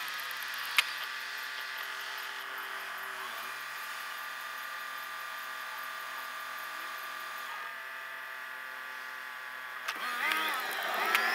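Car engine idling at a standstill, heard from inside the car and sped up sixfold, so the idle is a steady high-pitched hum with a light hiss. A single sharp click comes about a second in. Near the end the engine revs up and its pitch rises as the car pulls away.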